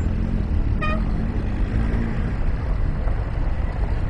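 Tractor engines running with a steady low rumble mixed with wind noise, and a short horn toot about a second in.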